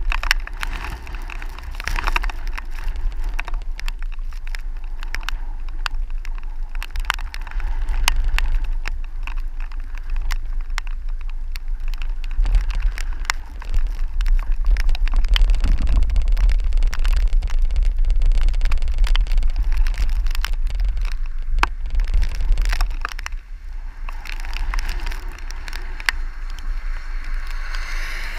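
Gusty storm wind buffeting the microphone as a deep rumble that swells and eases, with scattered sharp ticks.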